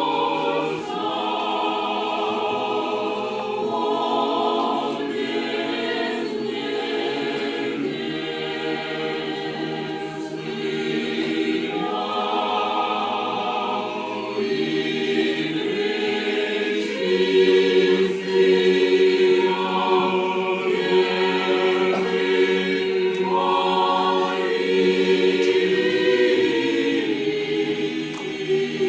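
Choir singing in slow, held chords, the notes changing every second or two.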